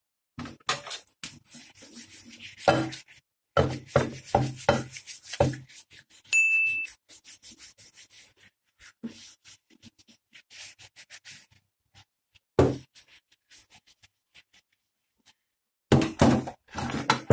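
Irregular knocks, clinks and rubbing, most likely tools and metal parts being handled, busiest in the first few seconds. There is a single short ringing ding about six seconds in and one louder knock later on.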